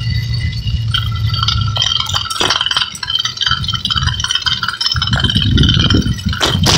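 Motorized bicycle's small engine running under way, with metallic rattling and clinking over its steady low hum. The engine note drops away about five seconds in and comes back stronger near the end.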